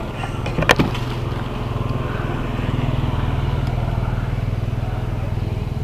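A motor vehicle's engine passing, a low steady hum that grows louder through the middle and eases off near the end. A single sharp click just under a second in.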